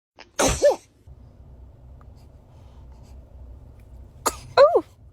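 A baby sneezing twice: a short sharp sneeze about half a second in and another near the end, each ending in a brief voiced note that rises and falls.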